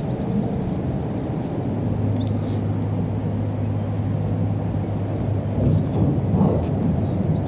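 Steady low drone of a distant motor, clearest through the middle, over a low rumble of wind on the microphone.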